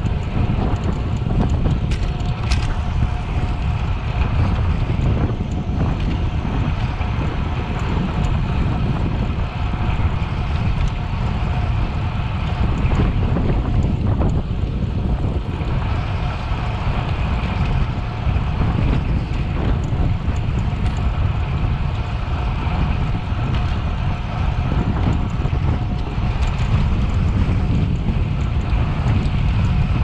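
Steady wind rushing over the microphone of a cyclist riding at speed, with a faint steady hum underneath.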